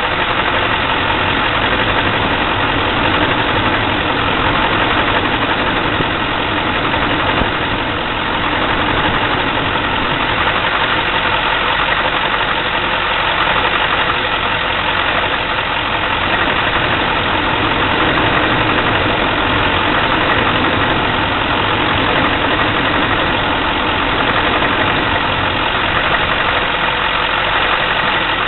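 2004 GMC's 6.6-litre Duramax V8 turbo-diesel idling with a loud, steady diesel clatter and small swells in loudness: a rough idle, the trouble the owner is chasing.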